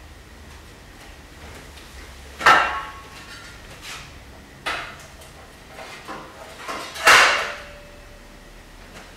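Metal bowls, plates and trays clanking as they are set onto a stacked tower of metalware: three sharp clanks, about two and a half, four and a half and seven seconds in, the first and last loudest, each ringing briefly, with lighter clinks and scrapes between.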